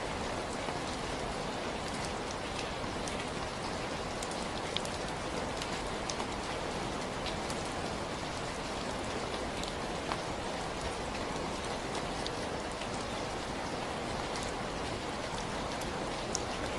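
Steady, even rainfall, with scattered individual drops ticking on a surface.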